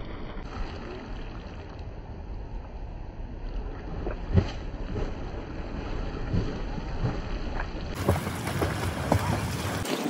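Water splashing and sloshing as a person swims through a lake, with a sharper splash a little under halfway through. Wind rumbles on the microphone underneath.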